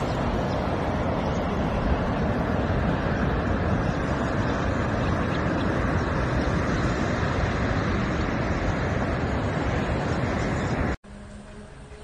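Steady rush of wind buffeting the microphone and surf breaking on an open beach. About eleven seconds in it cuts off suddenly, leaving a much quieter background with faint steady tones.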